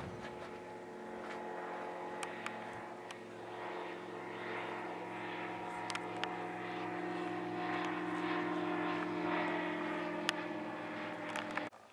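Propeller-driven light aircraft, its engine a steady hum that grows slightly louder before the sound cuts off abruptly near the end.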